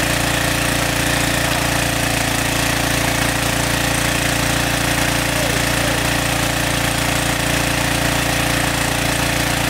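Small engine-driven water pump running steadily, a continuous even hum with no change in speed, as it pumps water out.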